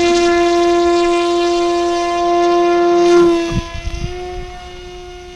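Electric motor and propeller of a Volantex Ranger 757-4 RC plane at full throttle, a loud steady high whine. About three seconds in the plane is hand-launched: a couple of low thumps, then the whine dips slightly in pitch and fades as it climbs away.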